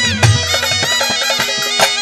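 Instrumental interlude of Haryanvi ragni folk music: a sustained, reedy melody line played over drum strokes.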